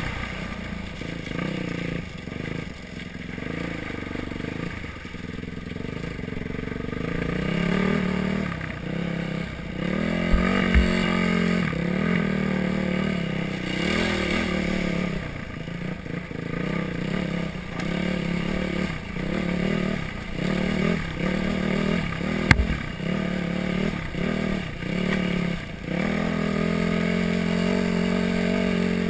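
Yamaha WR450F dirt bike's single-cylinder four-stroke engine revving up and down with the throttle while riding, the pitch dropping and climbing again over and over. About halfway through there is a rush of water splashing as the bike goes through the creek, and there are a few sharp knocks.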